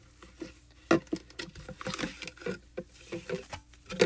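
Irregular light taps, clicks and rustles of hands handling wet wipes and a plastic stencil on a craft mat, the sharpest tap about a second in.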